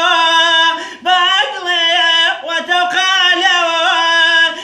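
A man singing unaccompanied in Kurdish traditional style, with long held notes decorated by quick wavering ornaments and a brief break for breath about a second in.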